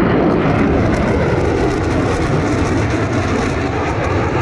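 Jet aircraft flying overhead in a display: a loud, steady rumble of jet engine noise that eases a little toward the end.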